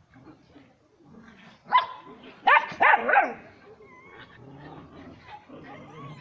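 A dog barking about four times in quick succession, starting about two seconds in, with fainter dog sounds around it.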